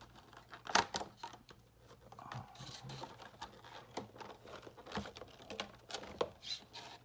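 Cardboard and plastic packaging of a trading-card collection box being handled as the promo cards are pulled out: irregular clicks, scrapes and light rustling.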